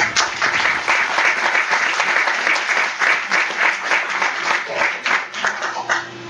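Small audience applauding, a dense patter of many hands clapping that dies away about six seconds in.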